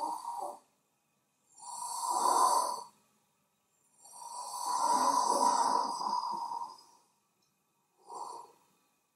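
A man's slow, audible breaths of controlled, supported breathing, the abdominal muscles contracted to hold tension in the air column. There are several stretches of breath noise with silent pauses between them: the longest, about three seconds, in the middle, and a short one near the end.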